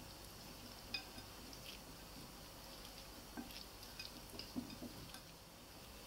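Purple silicone spatula stirring a chopped chicken and vegetable salad with mayonnaise dressing in a ceramic bowl: faint soft wet stirring with scattered light clicks against the bowl, one sharp click about a second in and a few more between three and five seconds in.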